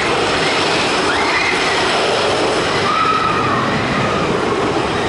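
Roller coaster cars running along the track, a steady loud noise, with riders' screams rising and falling faintly above it.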